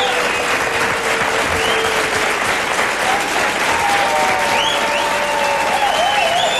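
Studio audience applauding steadily, with a few shouts and whistles rising over the clapping.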